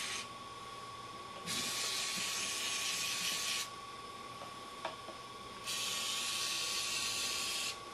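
Aerosol lubricant sprayed through a red extension straw onto a small-engine carburetor's throttle linkage and cable, in two steady hissing bursts of about two seconds each, with the end of an earlier burst just at the start.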